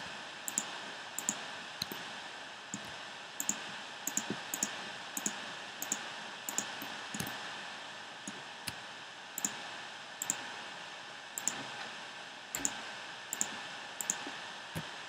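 Irregular sharp clicks of a computer mouse and keyboard, about one or two a second, over a steady hiss.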